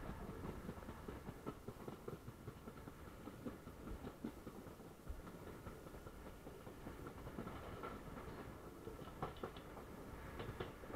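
Passenger train running along the track, heard from beside a coach: a steady rumble of wheels on rails with irregular clicks and knocks.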